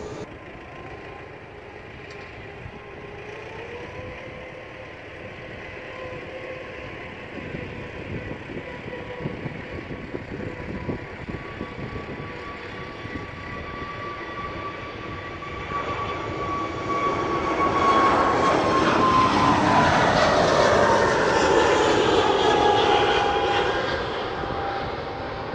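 Airbus A320neo's Pratt & Whitney PW1100G geared turbofans at takeoff thrust. An engine whine rises in pitch a few seconds in as the engines spool up. The jet noise then grows much louder as the plane rolls past and lifts off, loudest from about 18 to 23 seconds in, with the whine dropping in pitch as it passes and climbs away.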